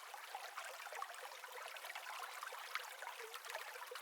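Faint running water, a steady trickling hiss with scattered small ticks and no bass.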